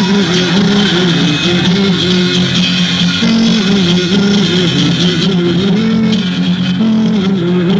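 Live instrumental music, an acoustic guitar playing a stepping tune over steady lower notes.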